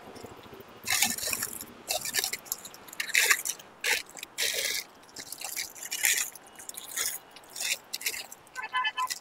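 Crinkling and rustling of plastic packaging being handled in a backpack, in irregular bursts. A short electronic tune starts just before the end.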